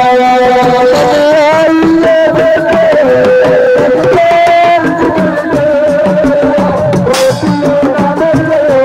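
Live assiko band music: a singer holding long, wavering notes over dense, fast hand-drumming, played loud.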